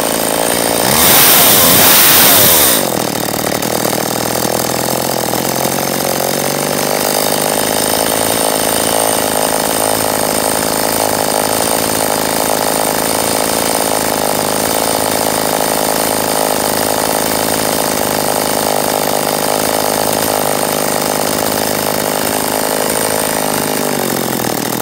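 Two-stroke chainsaw engine briefly revved to full throttle about a second in, then dropping back to a steady idle of about 3,200 rpm. The carburetor is being tuned, with the speeds settling at about 13,200 rpm at full throttle and 3,200 rpm at idle.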